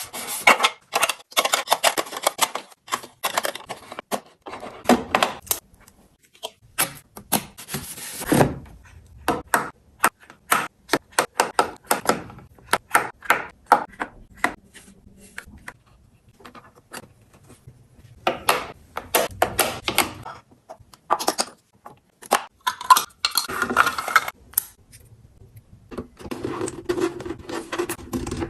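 Small storage boxes and toiletry containers being handled and set down while a mirror cabinet is organized: quick runs of clicks, taps and knocks with some rubbing and rustling, broken by short pauses.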